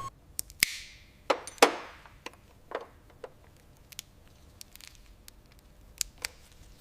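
Irregular sharp clicks and knocks, with two short hissing swishes in the first two seconds; the loudest knock comes about a second and a half in.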